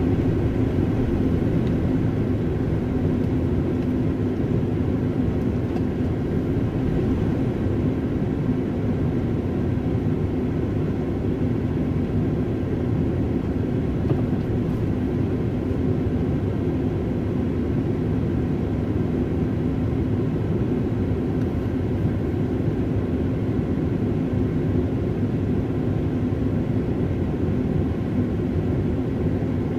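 Steady low rumble of a car's engine and road noise heard from inside the cabin, with a faint steady hum. It is a little louder at first, then settles as the car stops and idles at a red light.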